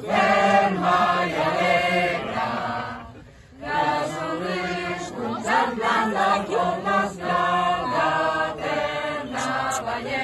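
A group of men, women and children singing a song together in unison, in long sustained phrases, with a short pause for breath about three seconds in.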